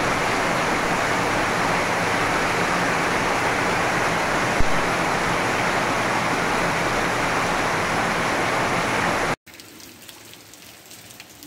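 Heavy rain falling in a loud, steady hiss that cuts off suddenly about nine seconds in, leaving a much fainter rain noise.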